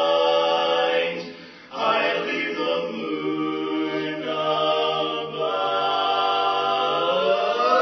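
Three singers performing a cappella in harmony, holding long chords. They break off briefly about a second and a half in, come back on sustained notes, and slide up in pitch near the end.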